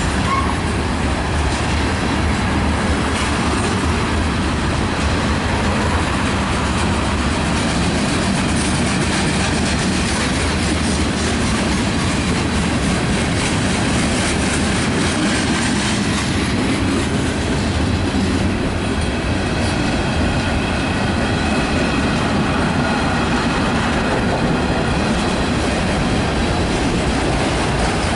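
Freight train cars rolling past at steady speed, a continuous rumble and clatter of wheels on the rails, with a faint wheel squeal in the second half.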